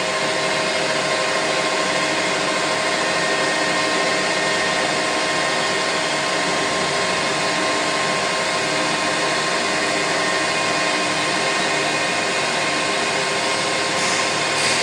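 Metal lathe spindle running steadily at its high speed setting of 950 rpm: an even mechanical whir with a few steady whining tones from the drive.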